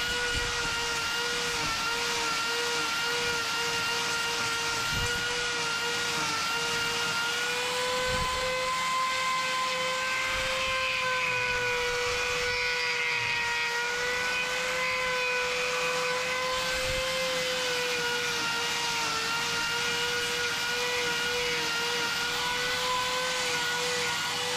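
Angle grinder fitted with a hoof-trimming disc running steadily as it grinds down a cow's overgrown claw to shorten and balance it. It gives a high, even whine that wavers slightly in pitch as the disc meets the horn.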